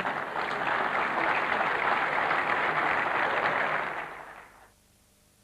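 Audience applauding, then dying away about four and a half seconds in.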